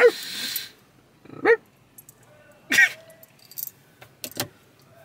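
A dog barking three times, short single barks about a second and a half apart, with a few faint clicks later on.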